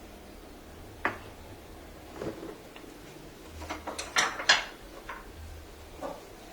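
Sharp clicks and knocks of hard plastic and tools being handled as a Crimson CR-12 active speaker is taken apart, a few single knocks and a quick cluster of louder clicks just past the middle.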